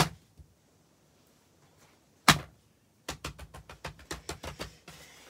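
Plastic fidget toys handled and set down on paper: a sharp knock at the start, a louder knock a little past two seconds, then a fast run of clicks for about two seconds.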